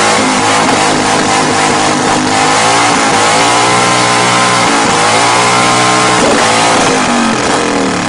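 Harley-Davidson V-twin motorcycle engine held at high revs, its exhaust blasting into a campfire to fan the flames. The pitch dips and picks up again twice, then falls away near the end as the throttle is eased off.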